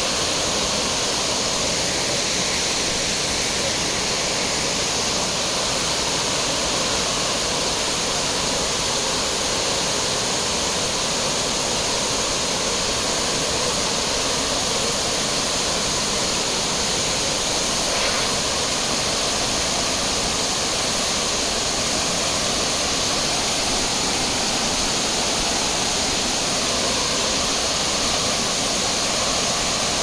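Waterfall cascading down a rock face into a pool: a steady, unbroken rush of falling water.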